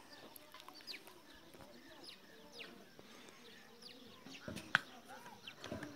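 Small birds chirping, many short quick falling chirps scattered throughout, over quiet rural outdoor background. A single sharp click stands out about three-quarters of the way in.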